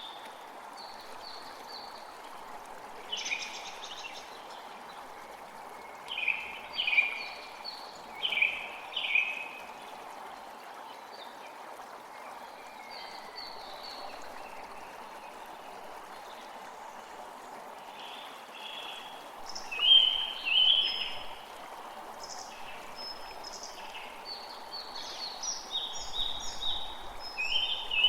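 Forest ambience: songbirds singing in short repeated phrases over a steady rushing background noise. The singing comes in scattered bouts, with a louder cluster about two-thirds of the way through and busier overlapping calls near the end.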